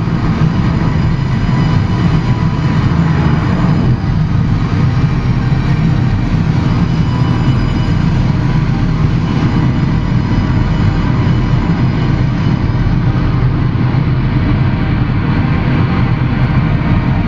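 Live electronic drone music from synthesizers and cabled electronics played through a PA: a loud, steady wall of sound, heaviest in the low end, with no beat.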